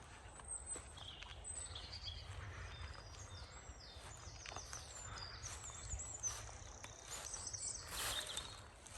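Several songbirds singing in woodland, an overlapping chorus of high chirps, trills and short whistled phrases, with a low steady rumble beneath. A brief burst of noise comes about eight seconds in.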